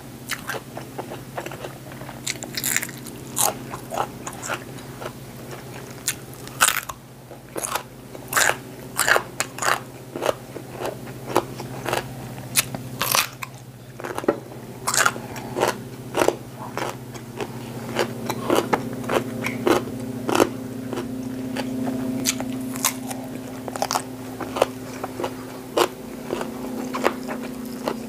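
Close-up crunching and chewing of raw, crisp vegetables, Thai eggplant among them: many sharp crunches, often several a second, with a steady low hum underneath.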